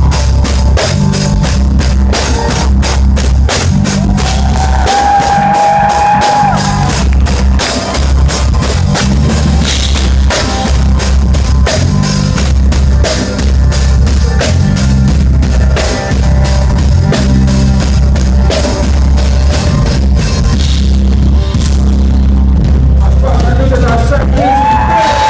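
Live band playing an instrumental passage, with the drum kit loud and close up over a pulsing bass line. A held higher note sounds about five seconds in and again near the end.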